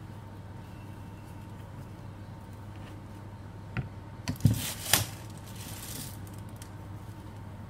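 A few sharp knocks and a short clatter about halfway through as an electric hand mixer with its wire beaters fitted is picked up off a table, over a steady low hum.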